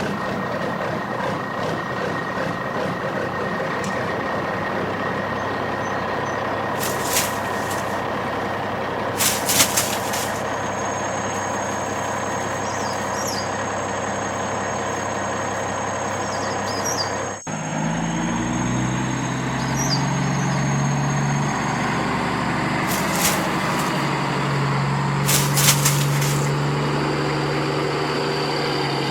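Heavy construction-vehicle engine running steadily, with a few short hisses like air releases. About seventeen seconds in, the sound cuts to a deeper, lower engine hum.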